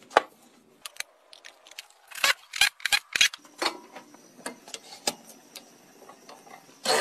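Irregular clicks and metal-and-wood knocks, a quick run of louder ones about two to three seconds in, as a log blank is fitted and clamped on a wood lathe that is not yet running.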